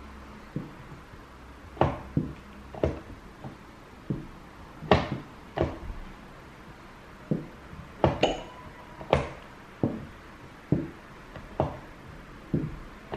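Quick, irregular knocks of quadruple-weighted plastic chess pieces set down on the board, mixed with hands hitting the buttons of a chess clock, at the pace of a bullet game.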